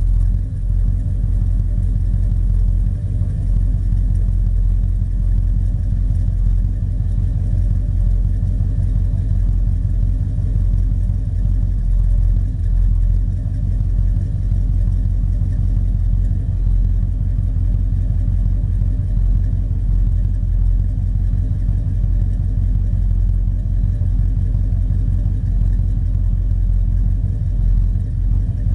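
1979 Chevy engine idling through Flowmaster 50 Series mufflers: a steady, deep exhaust rumble at the tailpipe.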